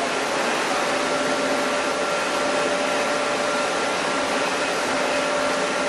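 Chili milling machinery running steadily: an even, loud mechanical noise with a steady whine held underneath.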